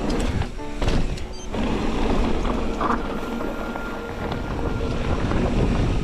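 Wind rushing over the microphone and the rattle of a mountain bike rolling fast over a dirt trail, with a few sharp knocks in the first second and a half.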